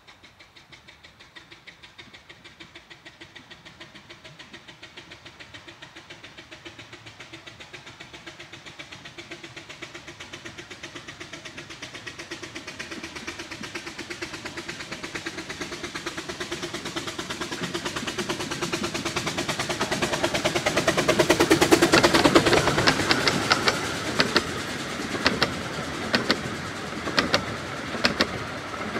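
Bure Valley Railway No.6 Blickling Hall, a 15-inch gauge steam locomotive, working a train with rapid, even exhaust beats that grow steadily louder as it approaches and pass close by about three quarters of the way in. After it passes, the coaches roll by with their wheels clicking over rail joints.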